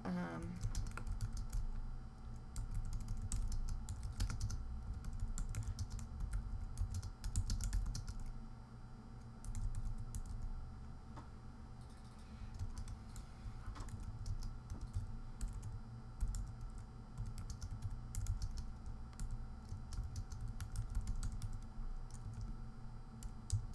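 Typing on a computer keyboard: an uneven run of key clicks in quick clusters with short pauses between words.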